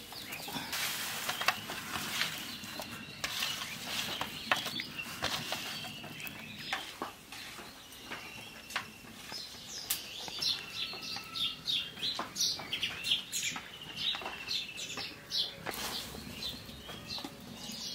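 Small birds chirping and trilling over and over, with scattered sharp clicks and taps.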